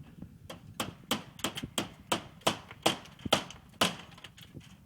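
A run of sharp knocks, about a dozen in three seconds at an uneven pace.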